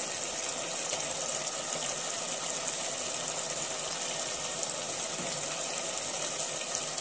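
Onion-tomato masala cooking in an open pressure cooker, a steady sizzling with fine crackle throughout.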